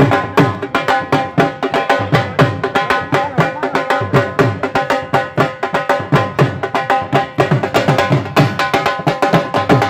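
Dhol drums, double-headed barrel drums beaten with sticks, playing a fast, steady luddi dance rhythm.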